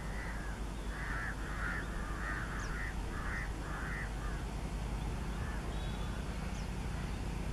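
A crow cawing repeatedly, about eight harsh caws in the first four and a half seconds, over a steady low rumble.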